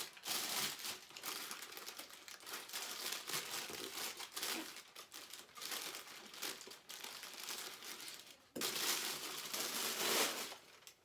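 Packaging crinkling and rustling continuously as statue parts are unwrapped by hand, with a louder burst of crinkling near the end.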